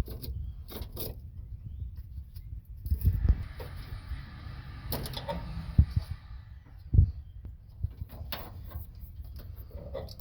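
Scattered clicks and small clatters from hand work on the truck's wiring and tools, with a rustling scrape from about three to six seconds in.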